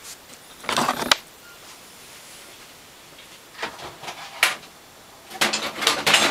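Three short bursts of rustling and scraping from objects being handled on a workbench: one about a second in, one a little past the middle, and the longest and loudest near the end.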